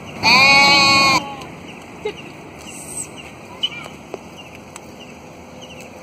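A sheep bleats once, a loud call of about a second, right at the start.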